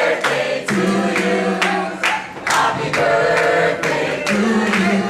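A group of people singing together in held notes, with no accompaniment standing out.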